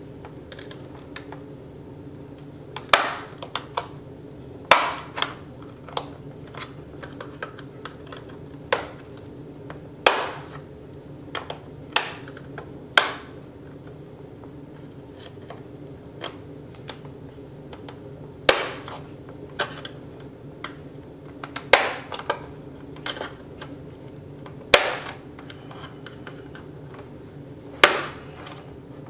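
The plastic snap clips of an HP Pavilion laptop's bottom case popping loose as the case is pried off with a small screwdriver: about a dozen sharp, irregular clicks and snaps, with softer ticks between them, over a steady low hum.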